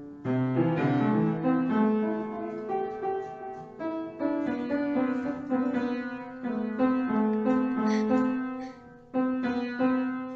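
Piano notes played in a continuous run, held lower notes sounding under higher ones; the playing breaks off briefly about nine seconds in and then resumes.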